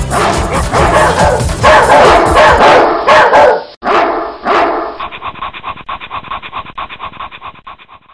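Electronic dance music with barking sounds mixed over the beat. About five seconds in, the music thins to a fast, evenly repeating pulse that fades out.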